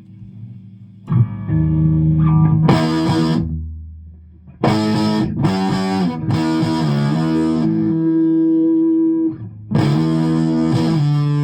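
Electric guitar played through a Laney LA30BL valve amplifier, strummed chords and held notes, with a weird flanging, sweeping quality in the amp's tone that the owner takes for a fault.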